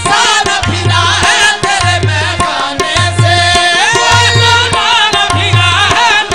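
Qawwali music: tabla playing a steady rhythm with a deep bass stroke about once a second, under a gliding, ornamented melody line.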